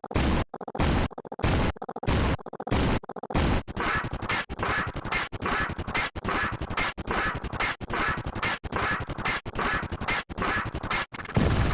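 A short sound effect played over and over in a rapid loop, about two repeats a second, turning faster and denser about three and a half seconds in as the copies start to overlap. A louder, fuller burst comes in near the end.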